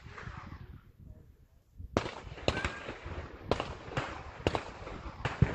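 Gunfire at an outdoor shooting range: an irregular string of about eight sharp pistol-type reports, starting about two seconds in. Before it, low wind rumble on the microphone.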